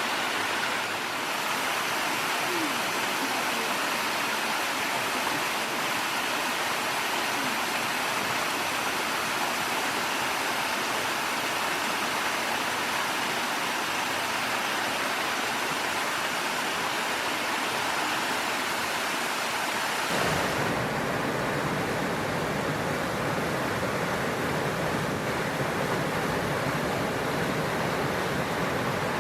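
Steady rushing roar of a waterfall. About two-thirds of the way through the sound changes abruptly, losing some hiss and gaining more low rumble.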